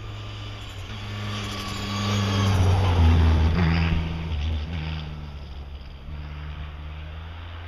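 Rally car passing at speed, its engine growing to loudest about three seconds in and then fading away, the engine note stepping in pitch as it goes.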